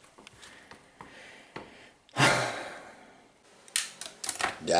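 A loud, breathy exhale like a sigh about two seconds in, fading over about a second, then several sharp clicks near the end.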